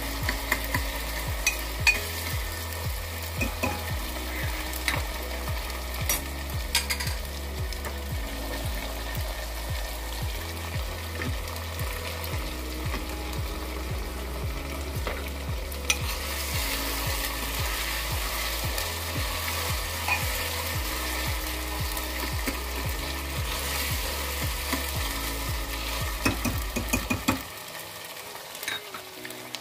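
Sliced onions frying and sizzling in oil in a pot on a high flame, with a steel ladle stirring and scraping against the pot now and then as the onions soften. A low background music bass line runs underneath and stops near the end.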